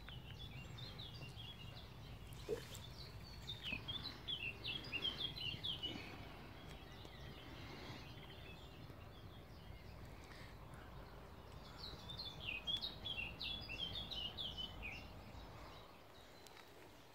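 A songbird singing two quick runs of short, high chirping notes, the second about eight seconds after the first, over a faint low outdoor rumble.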